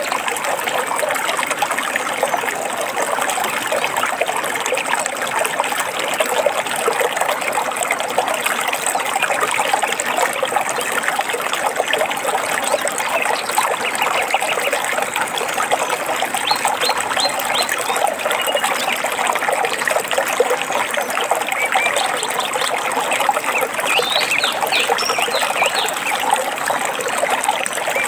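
Stream water trickling and splashing steadily over rocks, with short, quick bird chirps in the second half.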